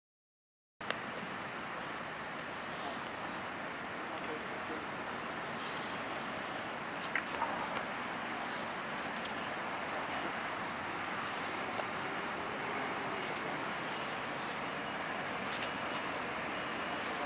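Night insects chirping steadily, with a fine high-pitched pulsing, over a steady outdoor background hiss. It starts after a second of dead silence.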